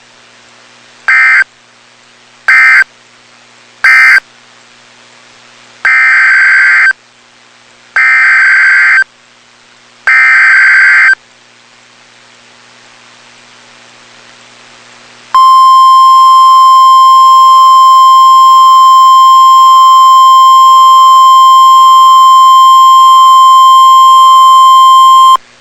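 Emergency Alert System SAME data bursts: three short buzzing bursts (the end-of-message code closing the previous warning), then three longer one-second header bursts announcing the next alert. A few seconds later comes the steady 1050 Hz NOAA Weather Radio warning alarm tone, held for about ten seconds.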